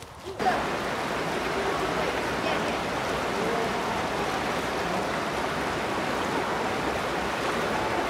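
Shallow stream rushing over rocks, a steady even rush of water that starts suddenly about half a second in.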